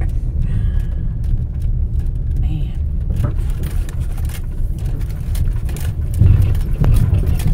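Car driving on a rough dirt road, heard from inside the cabin: a steady low rumble of tyres and body, with frequent short knocks and rattles, louder about six seconds in.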